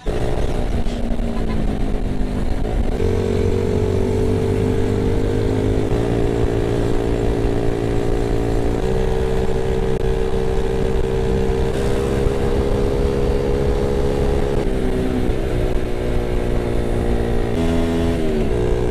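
Yamaha Vega Force Fi 115 underbone motorcycle's small single-cylinder four-stroke engine running at road speed, heard from the rider's seat, with wind rush. The engine note shifts up and down in steps every few seconds and glides down near the end as the bike slows.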